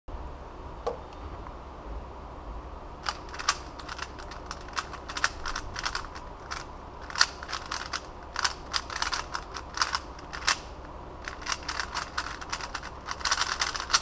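A 3x3 Rubik's Cube being turned fast in a speed solve: its plastic layers clack in quick runs of sharp clicks, starting about three seconds in and packing closer together near the end.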